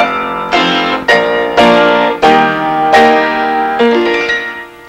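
Closing music on piano: a slow series of struck chords, each ringing and decaying, with the last chord fading away near the end.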